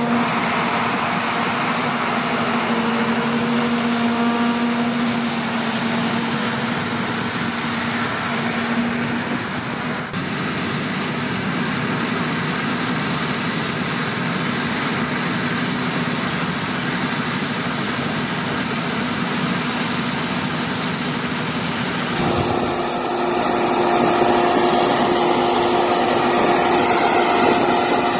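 Harvest machinery running steadily, in three parts. First a Steyr tractor's diesel engine hums steadily while a combine's unloading auger fills its trailer. Then a Claas Tucano 440 combine harvester's engine and threshing noise as it cuts rapeseed. Then a Case IH tractor's diesel engine with a steady hum. The sound changes abruptly about a third and three-quarters of the way through.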